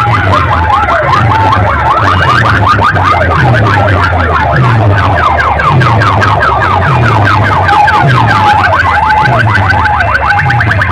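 Loud electronic siren-like warbling effect, rapidly sweeping up and down, over a falling bass drop about once a second, played through a large DJ sound-box system as a sound-competition track.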